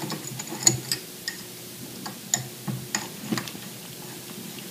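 Light metallic clicks and ticks at irregular intervals as a hex key works the screws that hold the zinc anode on a Max-Prop propeller's end cap.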